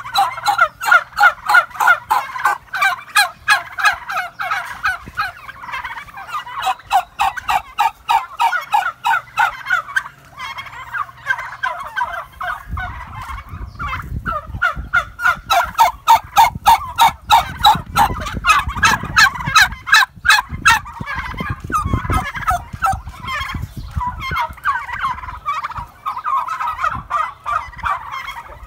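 A flock of domestic turkeys gobbling continuously, many rapid calls overlapping. A low rumble runs underneath through the middle stretch.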